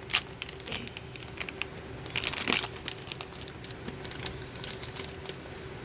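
Rustling and scattered small clicks as a hard drive and its cables are handled, with a louder flurry about two seconds in, over a faint steady hum.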